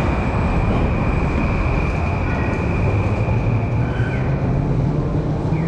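Steady urban traffic noise: a low rumble with a faint steady high whine, and a couple of short falling squeals near the end.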